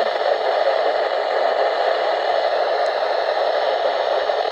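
Steady hiss of static from a weather radio receiver, with no voice getting through: the broadcast signal has dropped out.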